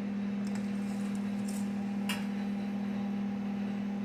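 A steady low hum, with a few light metallic clinks of tools handled on the steel frame.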